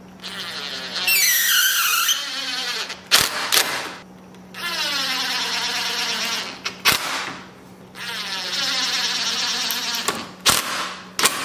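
Cordless drill running in three bursts, drilling countersunk pilot holes in a poplar board: a whine whose pitch sags and recovers as the bit cuts in the first burst. Sharp clicks come between the bursts.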